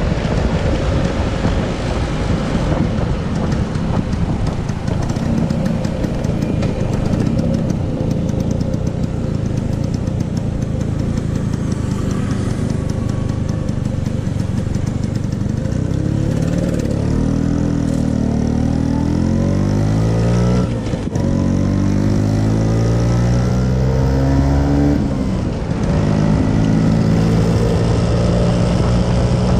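Classic two-stroke Vespa scooter engine running under way, with wind rushing over the microphone. From about halfway the engine note rises repeatedly as the scooter accelerates, breaking off briefly twice.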